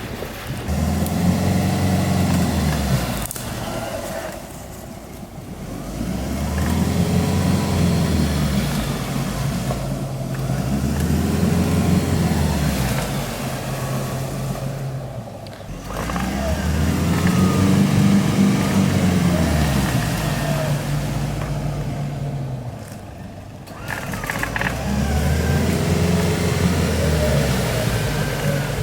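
A four-wheel drive's engine revving hard again and again, its pitch climbing and falling back in about five long surges, as the bogged vehicle struggles through a deep puddle.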